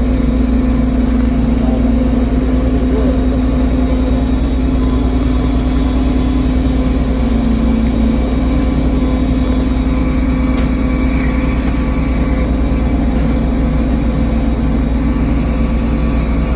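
Heavy machine's engine running steadily at idle: a constant low drone with an unchanging pitch.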